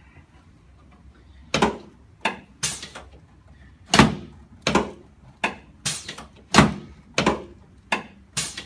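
A quick series of about a dozen sharp knocks, roughly one every two-thirds of a second, starting about a second and a half in. Each has a short ringing tail, made in the course of a chiropractic adjustment of a patient lying face down.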